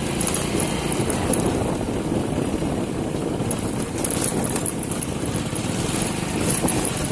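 Motorcycle engine running steadily while riding along a rough street, with road noise.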